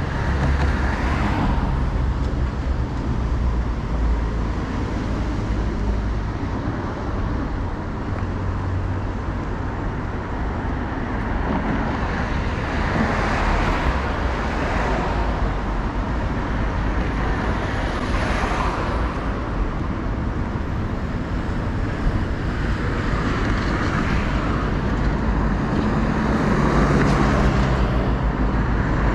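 Road traffic on a busy street: cars pass one after another, each swelling and fading over a few seconds, over a steady low rumble.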